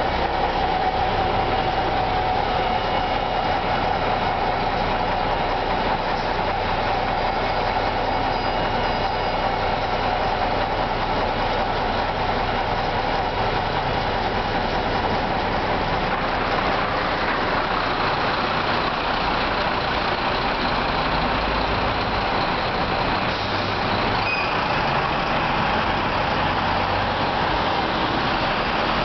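Street traffic on a wet road: an Ikarus 260 city bus's diesel engine pulling away with a steady whine that fades over the first few seconds. Tyres hiss on the wet road as cars pass, and the noise grows from the middle on as a heavy truck approaches.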